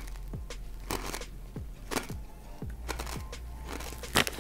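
Kettle-cooked potato chip being chewed, a crisp crunch about once a second.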